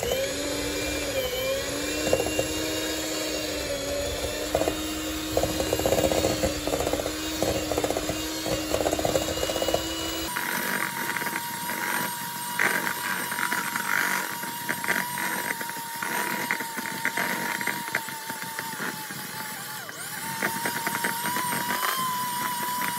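Electric hand mixer running, its beaters rattling in a stainless steel bowl as they cream butter and sugar. The motor whine steps up sharply in pitch about ten seconds in.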